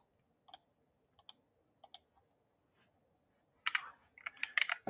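A few single computer clicks spaced about a second apart, then a quick run of keyboard keystrokes near the end as a formula is typed into a spreadsheet.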